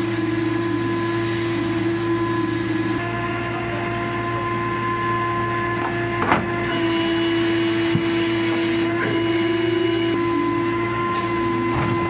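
Steady drone of machinery running at a constant pitch, with a single knock about six seconds in and a smaller click near eight seconds.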